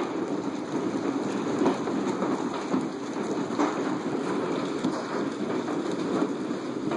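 Heavy hail, stones about an inch and a half across, pelting a house and the ground: a steady dense rush of impacts with scattered sharper hits.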